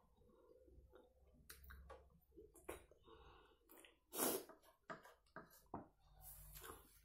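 Quiet close-up eating sounds of a person eating yogurt with a spoon: scattered wet mouth clicks and smacks, the loudest about four seconds in.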